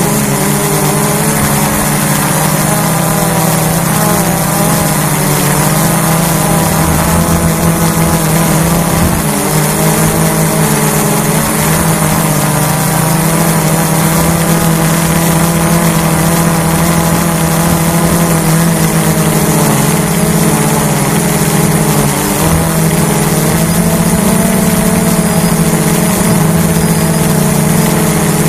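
Hubsan H109S quadcopter's motors and propellers running in flight, a steady buzzing drone with small shifts in pitch as it manoeuvres, heard through the drone's own onboard camera.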